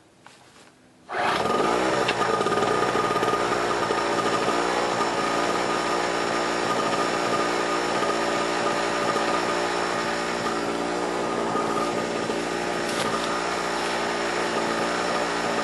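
Harbor Freight 63cc two-stroke 800-watt portable generator starting up about a second in, picking up speed briefly, then running steadily. It is a cold start, running on about three-quarters choke to warm up.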